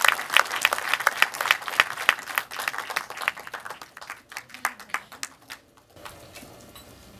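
Audience applauding: dense clapping that thins to a few scattered claps and dies away about six seconds in.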